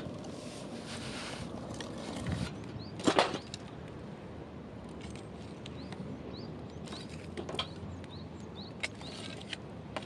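Wood campfire crackling and popping in a steel fire-pit grill, with scattered sharp snaps. About three seconds in, a louder clatter of wood on wood as a log is added to the fire.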